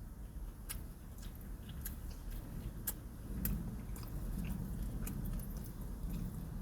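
A man chewing a Burger King fast-food sandwich with his mouth close to the microphone: scattered wet mouth clicks and smacks, with chewing heavier in the second half. A low steady rumble runs underneath.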